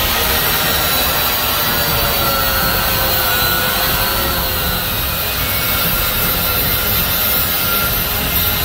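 Angle grinder with an abrasive cut-off wheel cutting through truck spring steel. It makes a steady, loud grinding hiss with a motor whine that wavers slightly as the wheel bites.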